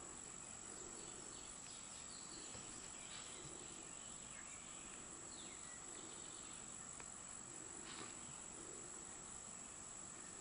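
Faint, steady background hiss with a thin high-pitched whine held at one pitch, and faint scattered rustles of a crochet hook and cotton yarn being worked.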